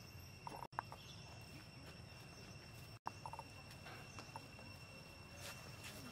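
Faint natural ambience: a steady, high insect drone with a few scattered light clicks, and two very brief dropouts.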